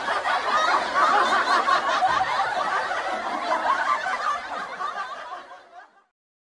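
Laughter from a group of people, a dense stretch of it that fades out and stops near the end.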